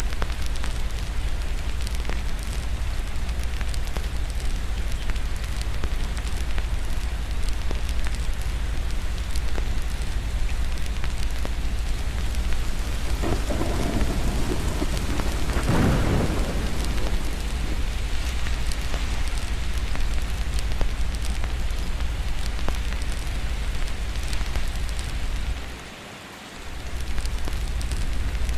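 Steady rain with a low rumble. A roll of thunder swells up about halfway through and fades away. Near the end the sound drops out briefly and comes back.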